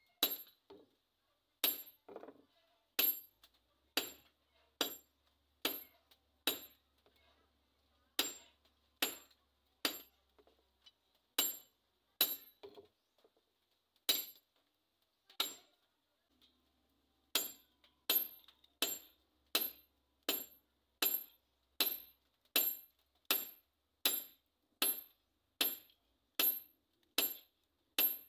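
Hand hammer striking a red-hot steel bolo blade on a small anvil block: sharp metallic clangs, each with a high ring. The blows come unevenly with pauses at first, then settle into a steady beat of about one and a half strikes a second.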